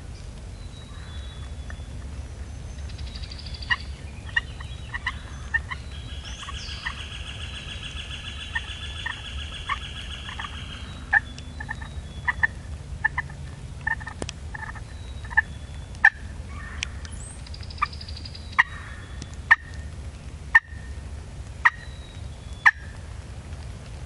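Wild turkey gobbling in the woods, mixed with many sharp irregular ticks, loudest in the second half, and a high drawn-out note lasting several seconds in the first half.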